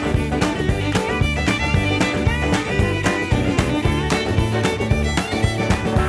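Country music instrumental break led by a fiddle, over a steady beat and a bass line.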